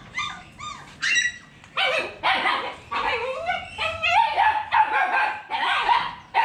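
Dogs whining and yelping: short high calls that rise and fall in pitch, spaced out at first, then louder and almost unbroken from about two seconds in.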